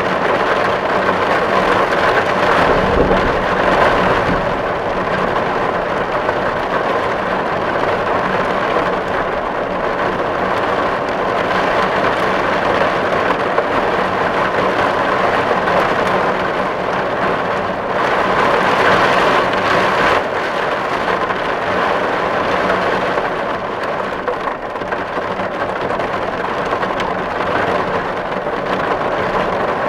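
Steady heavy rain drumming on a tin roof: a dense, even patter of drops on the metal, swelling briefly a few seconds in and again around the middle.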